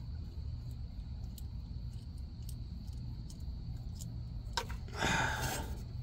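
Low steady background hum with a few faint clicks, and a short scraping rustle about five seconds in as a plastic wiring plug is worked by hand.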